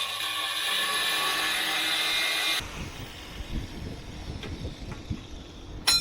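Electric angle grinder cutting steel plate with a steady high-pitched whine. It stops abruptly about two and a half seconds in, followed by quieter low handling noise and one sharp metallic clink near the end.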